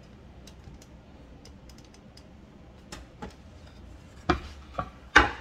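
Handling noise: scattered light clicks, then a few sharper knocks and clacks in the last second and a half, the loudest just before the end, over a steady low hum.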